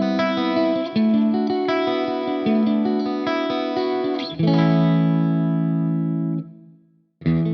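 Soloking MS-11 Classic electric guitar played through an amp with effects, picking a sequence of chords and single notes. A chord struck just past halfway rings out, then dies away to a short silence, and playing starts again right at the end.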